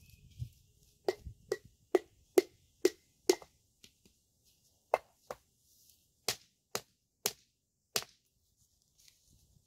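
A mallet knocks a concrete paver down into its sand bed to level it. There are about a dozen sharp strikes: six in quick succession at about two a second, then after a short pause several more, spaced a little further apart.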